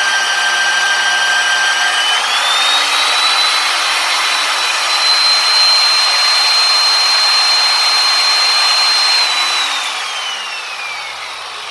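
Magnetic drill motor running with a steady whine while cutting a 26 mm hole through 1/4-inch steel plate. Its pitch rises about two seconds in and holds, then the motor is switched off and winds down near the end.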